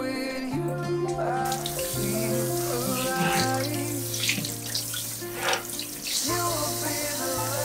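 Kitchen tap running and splashing as a wooden cutting board is rinsed under it in a stainless steel sink, the water starting about a second and a half in. Background music plays throughout.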